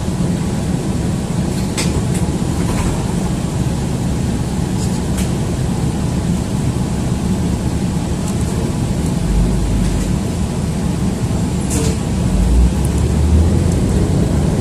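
City bus interior while riding: steady engine and road rumble heard inside the cabin, with a few short clicks or rattles and some heavier low thumps in the second half.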